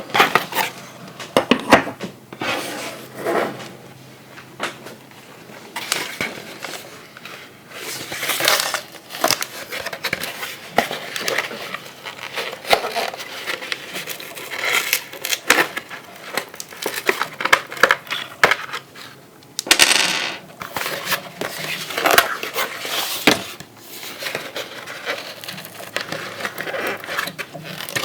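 Hands handling a plastic Transformers toy and its packaging: an irregular run of sharp plastic clicks and taps, with crinkling rustles now and then.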